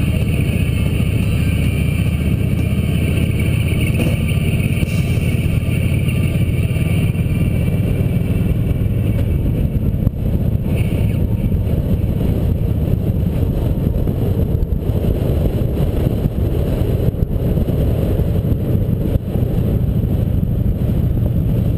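Touring motorcycle cruising at highway speed: a steady low engine drone mixed with road and wind noise.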